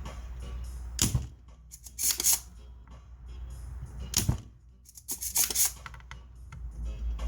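Several sharp clicks and knocks of hand tools handled on a workbench during desoldering of the amplifier board, about four in all, a second or more apart, over a steady low hum.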